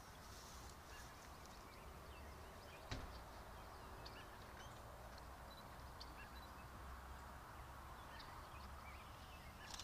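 Faint outdoor ambience: a low steady rumble, scattered faint bird chirps, and a single sharp click about three seconds in.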